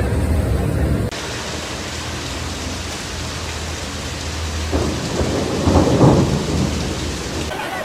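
Heavy rain falling steadily, with a rumble of thunder swelling from about five seconds in and fading near the end; a low engine-like hum is heard for the first second before an abrupt cut.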